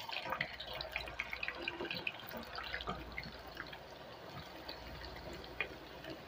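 Raw potato sticks deep-frying in hot oil in a pan: a dense crackling sizzle of many small pops, busiest in the first few seconds and then settling to a steadier sizzle.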